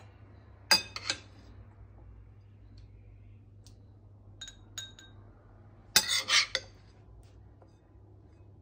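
Metal spoon clinking against a glass bowl and a stainless steel mixing bowl while salad is scooped and served: a few sharp ringing clinks about a second in, faint ticks midway, and a quick cluster of clinks about six seconds in.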